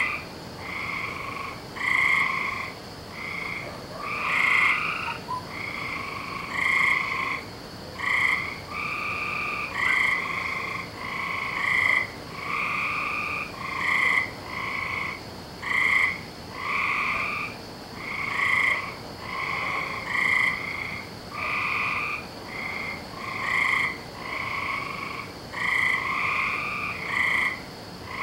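A chorus of frogs calling: short calls of under a second each, following one another about once a second with several frogs overlapping.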